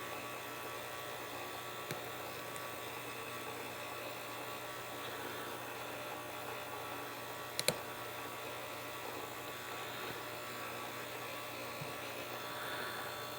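Steady low electrical hum with faint hiss, broken by a tiny click early on and one sharp small click a little past halfway.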